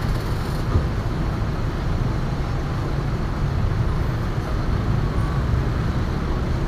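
Diesel engine of a Hino coach idling close by, a steady low rumble with a brief knock under a second in.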